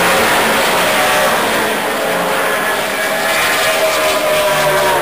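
NASCAR stock cars' V8 engines running at racing speed, one car passing close near the end with its engine pitch rising and then dropping as it goes by.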